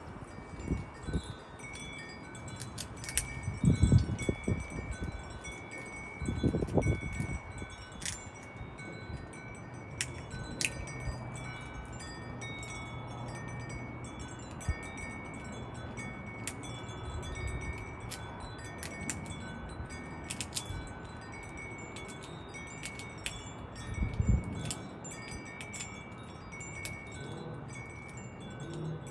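Wind chimes ringing on and off, several clear tones overlapping. There are scattered sharp clicks and a few low bumps; the loudest bumps come about four and seven seconds in, and another comes near the end.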